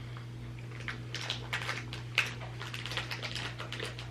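Close-up chewing of soft, squishy fruit gummies: a run of small wet mouth clicks and smacks, over a steady low electrical hum.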